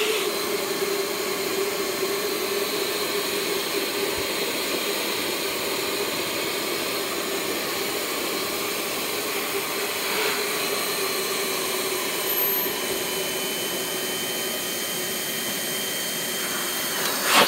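Handheld electric air pump running steadily with a constant motor whine and rush of air, blowing air through the valve to inflate a vinyl inflatable horse jump.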